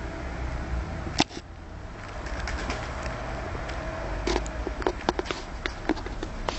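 Tumbler pigeons moving about in a loft. A single sharp knock comes about a second in, and a run of short clicks and taps fills the last two seconds.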